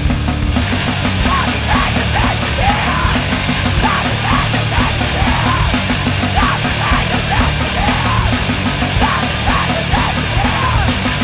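Screamo band playing loud, dense music: a fast, steady beat with screamed vocals over it.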